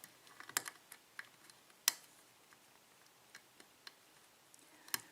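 Faint, irregular metallic clicks and ticks of a lock pick working the pins of a six-pin Dorma lock cylinder as they are lifted one at a time, with a sharper click about two seconds in and another near the end.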